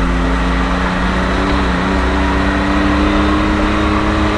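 Can-Am Maverick X3 side-by-side's three-cylinder engine running steadily under way, its pitch rising slightly in the second half.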